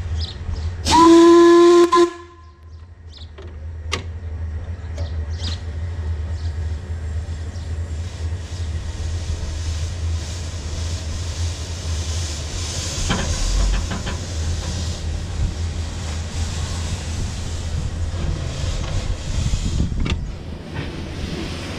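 15-inch-gauge 2-8-2 steam locomotive River Mite sounding one short whistle blast of about a second, then steam hiss and the steady running rumble of the train, building over the next few seconds as it gets under way.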